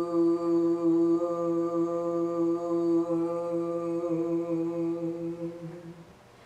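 A woman's voice holds one long, steady "fu" tone, the qigong healing sound for the digestive system, then fades out about six seconds in.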